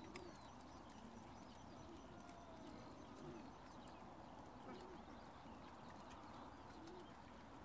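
Faint, steady cooing of many racing pigeons waiting in their transport crates, with a few thin, high bird chirps over it.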